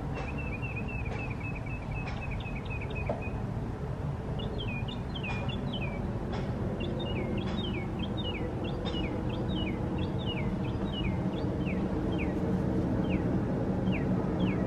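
Birdsong: a fast high trill for the first few seconds, then a long run of quick downslurred notes that spaces out toward the end, over a steady low background rumble.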